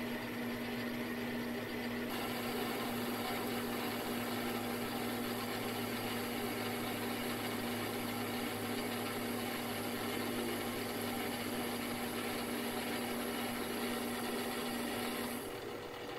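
Small metal lathe running under a cut, turning a 12L14 free-machining steel bar held with tailstock support: a steady motor hum under the hiss of the tool cutting. The hum drops away about a second before the end.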